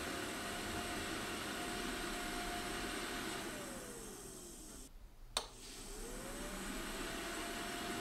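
Eibos filament dryer cycling at a 50 °C setting. Its fan whirs steadily, then winds down with a falling whine to a stop. About five seconds in an electromechanical relay clicks once, and the fan spins back up with a rising whine. This is the heater and fan switching on and off every 10 to 15 seconds at lower temperatures.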